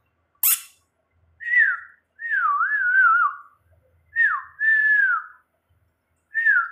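A person whistling to call a dog: a string of short falling whistles and one longer warbling whistle, after a sharp short click about half a second in.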